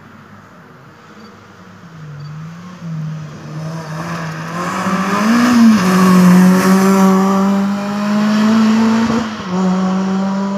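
Peugeot 206 rally car approaching at speed and passing close by, its engine held at high revs and growing louder, loudest as it goes past about six to seven seconds in. The engine note breaks briefly about five and a half seconds in and again near nine seconds.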